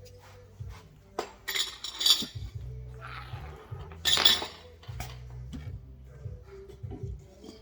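Metal hand tools clinking and clattering in a few short, sharp bursts, loudest about two seconds in and again about four seconds in.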